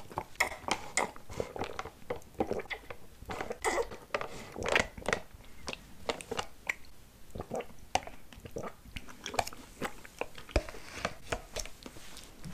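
Close-miked mouth sounds of drinking tapioca bubble tea through a wide straw and chewing the tapioca pearls: a steady stream of quick, wet clicks and smacks.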